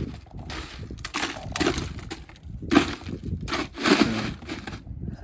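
Ice crunching and clinking in a run of rough scrapes as fresh-caught mackerel are packed into it.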